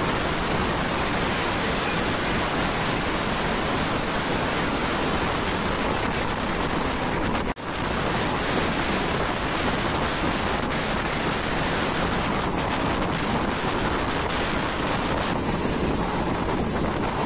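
Wind rushing over the microphone held outside a moving passenger train, mixed with the train's steady running noise on the rails. The sound drops out for an instant about seven and a half seconds in.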